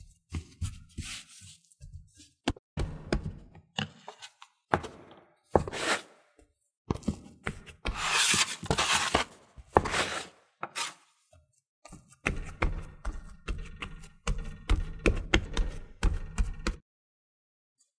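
Plastic dough scraper scraping across the counter and hands pressing and patting scone dough, giving irregular soft knocks and longer scrapes. The sound cuts off suddenly near the end.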